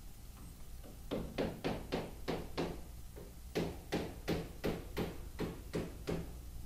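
A hammer striking in quick, even blows, about three a second: a run of about six, a short pause, then about nine more.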